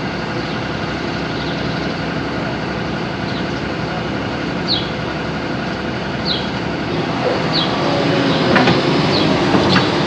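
SANY crawler excavator's diesel engine running steadily. About seven seconds in it gets louder as the machine works, with a few short high squeaks and a couple of metallic clanks near the end.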